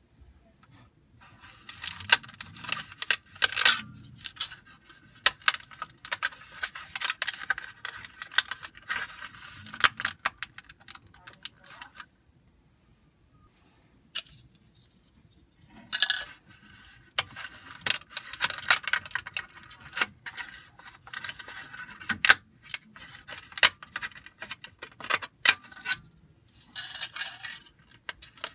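ABS plastic being snapped and peeled away by hand from a two-colour 3D print: a run of sharp cracks, clicks and scrapes of hard plastic, with a pause of about two seconds near the middle.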